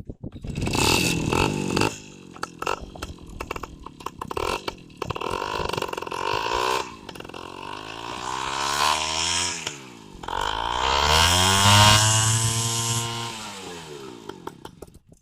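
Bajaj M80 engine running and being revved twice: the pitch climbs, drops back about ten seconds in, climbs again to its loudest near the twelfth second, then falls back toward idle.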